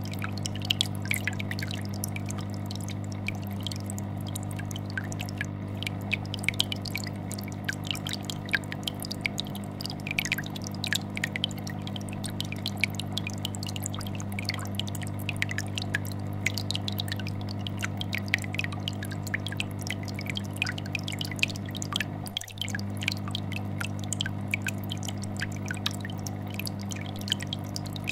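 Aquarium air bubbler and filter running together: a steady low vibrating hum from the filter under a constant stream of small bubble pops and drips. The level dips briefly about 22 seconds in.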